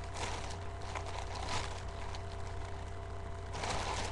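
Steady electrical hum and hiss from a webcam microphone, with a few faint rustles of fabric being handled.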